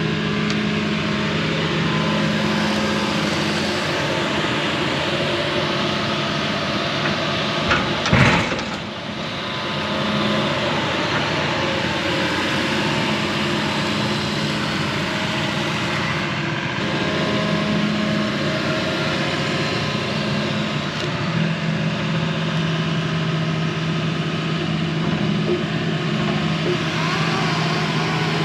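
Excavator engine running steadily, with one sharp crack or thump about eight seconds in.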